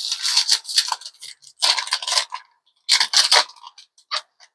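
Foil wrapper of a trading card pack crinkling and tearing as it is ripped open, in three bursts, with a short click near the end.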